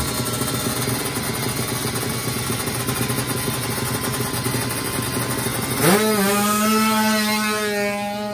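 350cc-class drag racing motorcycle engine revving hard on the start line. About six seconds in, the note jumps sharply up to a steady high-pitched engine note as the bike runs flat out down the drag strip.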